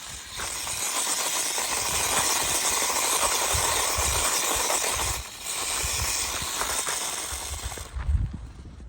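Micro-scale RC truck driving on loose gravel close by: a steady hiss and rattle of its tyres churning and flinging gravel. The sound breaks off briefly a little past halfway, and there is a thump near the end.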